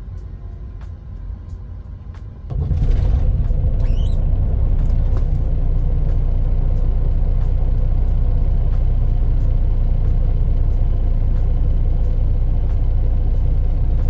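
Freightliner Cascadia's diesel engine starting about two and a half seconds in, then settling into a steady, loud idle.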